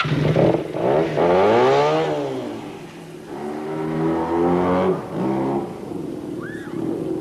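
Motorcycle engine revving: the pitch climbs and falls back in the first couple of seconds, then it is held at a steadier speed before dropping back to a lower, quieter running.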